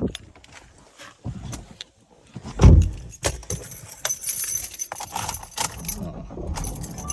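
Set of keys jangling, with scattered clicks and one heavy thump about two and a half seconds in; the jingling is densest in the middle seconds.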